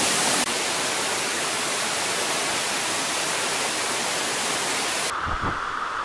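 Steady rush of a small forest stream cascading over rocks. A little over five seconds in it turns duller and quieter, with a few low bumps.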